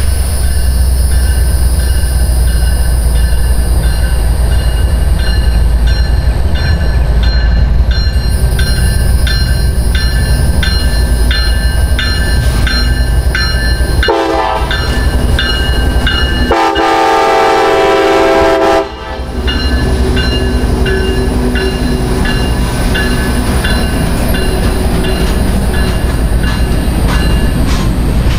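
A train rolling past, a steady loud rumble with its wheels clicking over rail joints at a regular beat. About fourteen seconds in, a train horn gives a short blast, then a longer blast of about two seconds that cuts off sharply.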